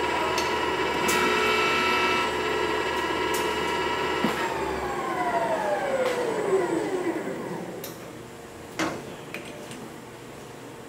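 Lathe spindle drive running with a steady whine, then switched off about four seconds in, its whine falling in pitch as the chuck coasts to a stop. A sharp click near the end.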